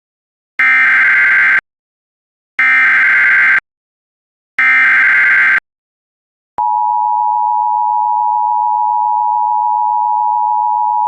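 Emergency Alert System SAME header: three one-second bursts of digital data tones, a second apart, followed by the steady attention tone starting about six and a half seconds in. This is the opening of a flash flood warning alert.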